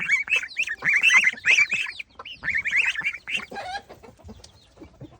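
Chickens clucking in a rapid run of short calls that thins out and goes quiet about four seconds in.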